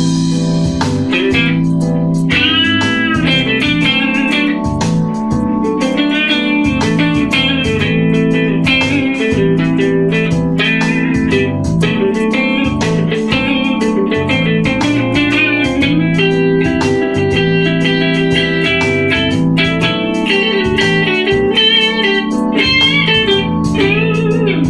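Electric guitar through a clean amp model with a compressor before the amp (Line 6 POD Farm's Vetta Comp), playing blues lead lines with string bends over a blues backing track. The compressor gives the notes extra sustain, though the treble is a little high.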